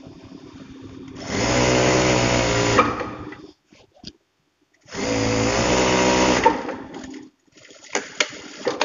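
Juki industrial sewing machine running at speed, stitching a seam through layered cotton fabric in two runs of about two seconds each with a short pause between. Near the end come a few light clicks and rustles.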